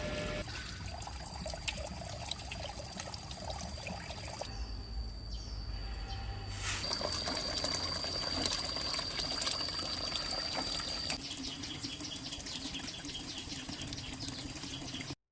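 Water running and splashing, changing abruptly twice as one shot cuts to the next.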